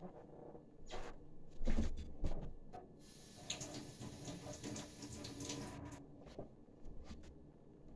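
Kitchen handling noises: light knocks and clatter, loudest about two seconds in, then a few seconds of rustling noise, with a few more clicks near the end.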